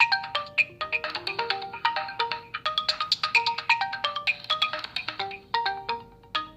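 OPPO phone ringtone playing: a quick, bright melody of short bell-like notes, several a second, getting quieter near the end.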